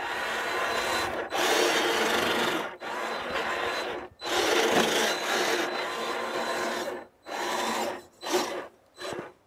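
RC crawler's electric motor and drivetrain running in repeated bursts of throttle as its tyres churn through deep snow, a raspy grinding noise broken by short silences. The bursts get shorter and choppier near the end.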